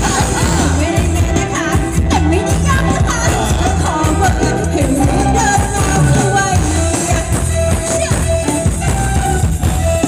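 Thai ramwong dance song played loud by a live band through a PA, a singer's voice over a steady bass beat.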